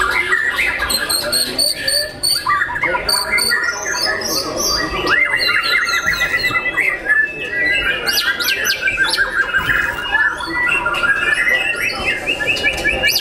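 White-rumped shamas singing together: a dense, unbroken tangle of varied whistles, trills and rapid chattering phrases.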